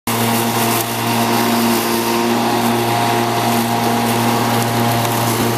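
Corded electric lawn mower running steadily as it is pushed through grass: a constant motor hum with cutting noise.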